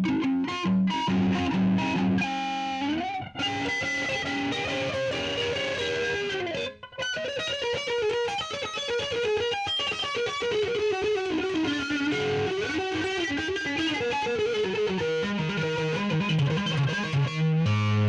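Electric guitar played through a Donner Jet Convolution flanger pedal. It starts with low distorted chords, moves to a single-note melodic line with brief breaks about three and seven seconds in, and returns to chords near the end.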